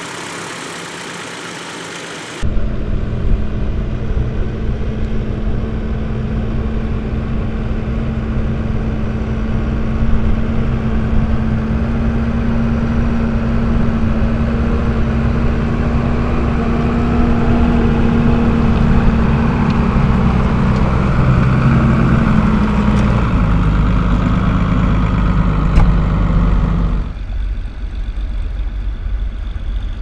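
Tractor engines running steadily under load while pulling ploughs through grass ground, with a steady engine note that drops lower near the end.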